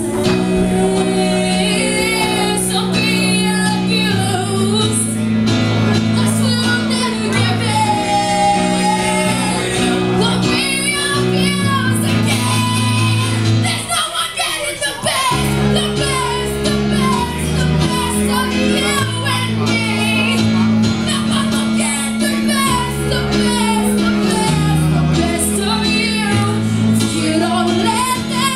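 A song with a lead singing voice over held bass and chord notes; about halfway the low notes drop out for a moment, then come back deeper.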